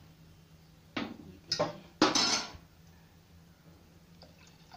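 Sharp clinks of a vessel or utensil against a stainless steel pressure cooker, three times in the first two and a half seconds, the last one loudest and briefly ringing. Near the end, a faint trickle of water being poured into the cooker.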